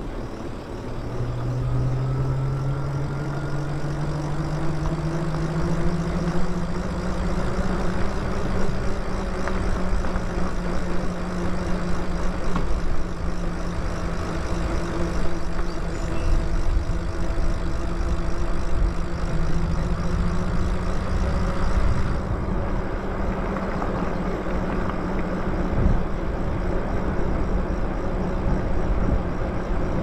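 Electric e-bike motor whining while riding, the whine rising in pitch over the first few seconds as the bike speeds up and then holding steady, under heavy wind rush on the microphone.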